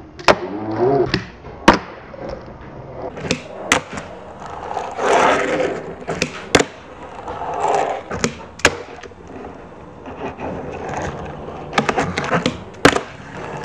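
Fingerboard tricks on a tabletop: repeated sharp clacks as the tail pops and the board lands on the desk, with a cluster of quick clacks near the end. Between them, short stretches of the small wheels rolling across the table.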